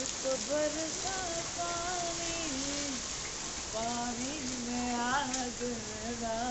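Steady rain falling, with a voice singing a slow tune of long held notes over it.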